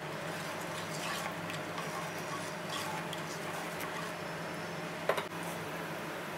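A spatula stirring thick tomato gravy in an aluminium pot, with small wet scrapes and clicks against the metal and a sharper knock about five seconds in, over a steady low hum.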